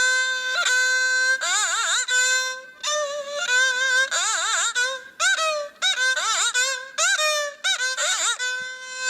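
Haegeum, the two-string Korean bowed fiddle, played solo: a steady held note, then short phrases of notes with wide, wavering vibrato and sliding bends, with brief breaks between bow strokes.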